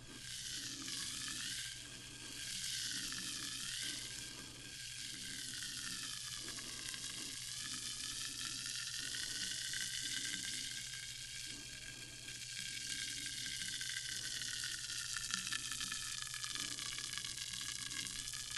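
Carbonated sparkling water fizzing: a steady crackling hiss of bursting bubbles, with a faint hum beneath.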